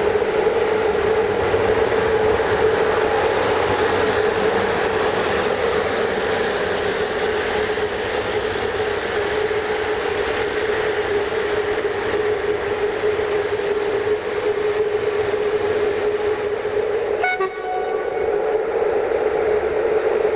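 Electric train running through the station: a steady whine over rolling noise, with a brief higher note about seventeen seconds in.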